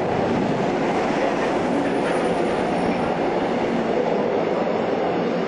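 Subway train moving through the station alongside the platform, a loud, steady noise of the train running on the rails.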